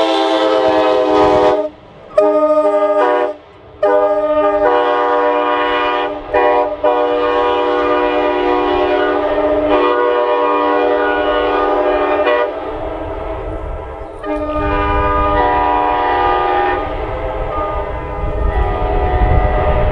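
Multi-chime locomotive air horns blown in long blasts, sounding a chord of several steady notes; two short breaks come in the first few seconds, then the horn is held almost without pause, with a low rumble underneath near the end.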